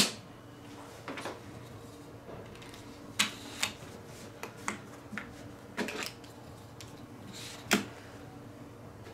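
Bar magnets of a Brother magnetic embroidery hoop clicking down onto the hoop frame through the quilt layers: a handful of short, sharp clicks at uneven intervals, the loudest about three seconds in and near the end.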